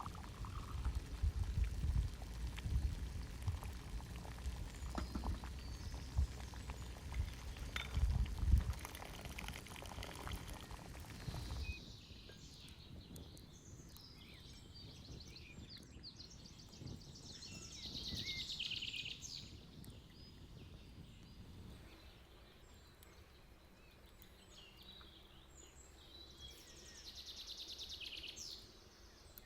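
Low rumbling outdoor noise with scattered thumps, which stops abruptly about twelve seconds in. Quiet rural ambience follows, with birds chirping briefly twice.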